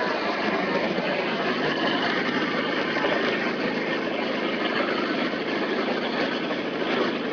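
Small Briggs & Stratton single-cylinder engine running steadily at an even speed, close by, with HHO gas from an electrolyzer cell fed into its intake. Its fuel tank is nearly dry and it is running on what is left in the upper fuel bowl.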